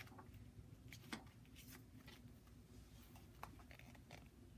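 Near silence with room tone, broken by a few faint clicks and rustles of a paperback picture book being handled and opened, the clearest about a second in.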